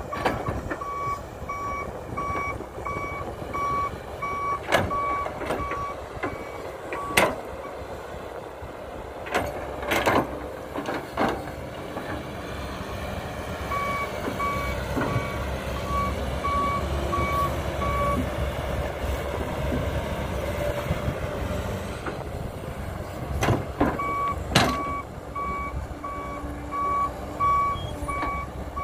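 Cat 312B hydraulic excavator's diesel engine running under load while it digs, with a backup warning beeper going about twice a second in three stretches. Several sharp knocks stand out among them.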